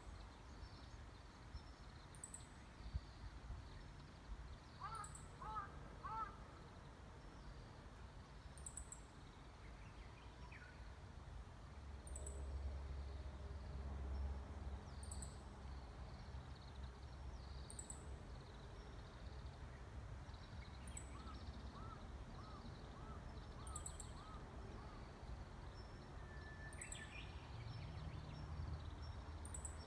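Faint wild birdsong with a Japanese bush warbler among the singers. A high, thin call repeats about every one and a half seconds, with short chirp series about five and twenty-one seconds in, over a low rumble that swells now and then.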